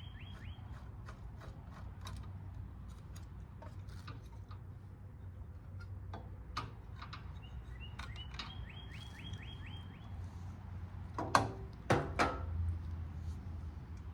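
Scattered light clicks and metal clinks of parts being taken off a small generator by hand, with a couple of louder knocks near the end. A bird sings a quick trill of falling notes near the start and again about eight seconds in.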